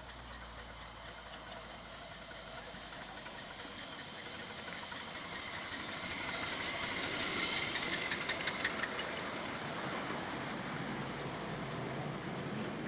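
Miniature steam locomotive hissing steam as it draws close, the hiss swelling to its loudest midway and then easing off. Just after the peak comes a quick run of about eight sharp clicks, then the steadier rumble of the train rolling past.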